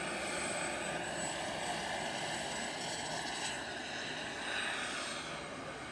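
Turbine-powered scale model Mi-24 Hind helicopter in flight: its turbine engine whines steadily in several high, level tones over a rushing noise.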